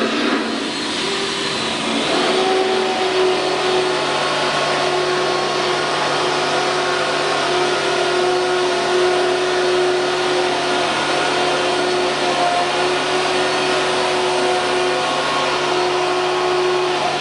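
Steady whir of an electric motor with a low hum, and a few held tones above it that shift slightly now and then.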